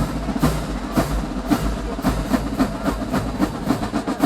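Marching band drumline playing a fast cadence of snare and bass drum strikes, several a second, ending in one loud hit.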